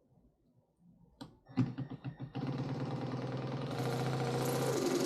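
Cordless jigsaw starting up after a few clicks of handling and running steadily as it cuts a saddlebag lid, its pitch dipping slightly near the end. The blade is one the user suspects is due for changing.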